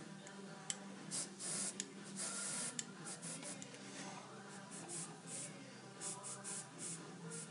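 Airbrush spraying paint in short bursts of hiss, about two or three a second, with a couple of longer sprays about two seconds in, as the trigger is pumped.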